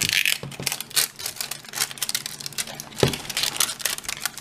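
Wrapper layer being peeled off an LOL Surprise ball, with quick crinkling and crackling and a single knock about three seconds in.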